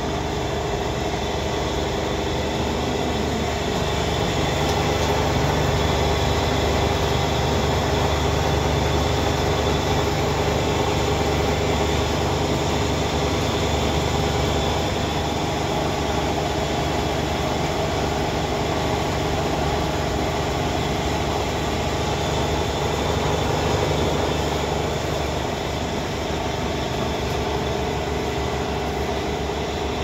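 Belt-driven electric flour mill (chakki) running and grinding grain, a steady loud hum and whirr with a grinding rush.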